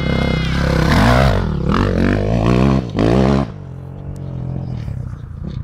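Motocross dirt bike engine revving hard, its pitch rising and falling as the bike passes close over a jump. After about three and a half seconds it drops to a quieter, steady engine sound as the bike rides away.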